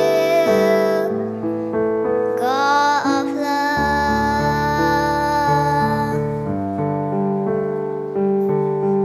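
A young girl singing over a piano-led backing track, her voice sliding up into a long held note about two and a half seconds in. Her singing stops about six seconds in and the piano accompaniment carries on alone.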